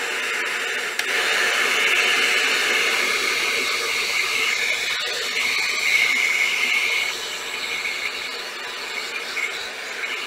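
Wagner heat gun blowing hot air to shrink heat-shrink tubing, a steady hiss with a whine in it, a little quieter over the last few seconds.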